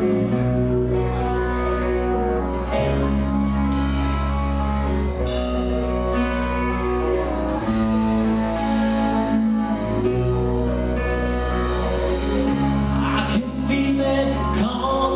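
Live rock band playing: two electric guitars and a bass guitar hold chords and bass notes over drums, with regular cymbal crashes.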